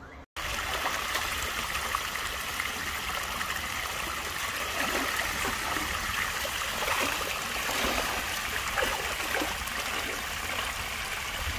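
Shallow stream water running steadily over rock, a constant rush that starts abruptly a moment in after a brief dropout.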